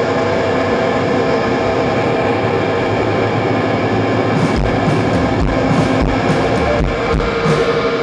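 Live grunge band playing: a dense wall of distorted electric guitar with one note held throughout, and heavy drum hits with crashing cymbals coming in about halfway through.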